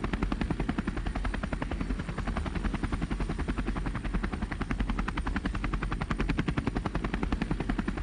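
Helicopter rotor chopping steadily: a rapid, even beat of blade thumps over a low drone.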